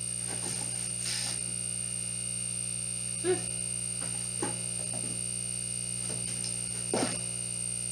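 Cardboard game components and packaging being handled and sorted through in a box, giving a few short clicks and rustles, about three of them, over a steady electrical hum with a high whine.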